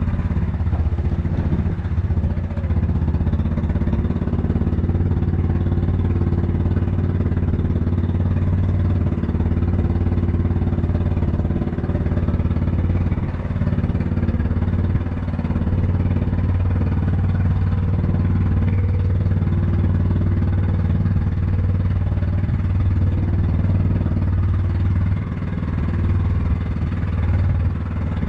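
Small passenger motorboat's engine running steadily under way: a constant low drone, with the rush of water and wind over the hull.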